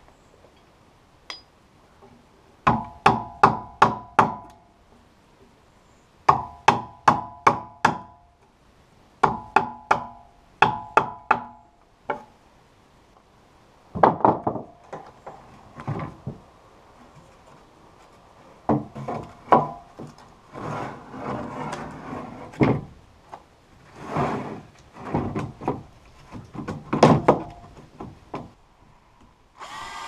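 Hammer blows in three quick runs of five or six ringing strikes each, working a fir floor board into place. After that come irregular wooden knocks and scraping as loose planks are shifted and laid down.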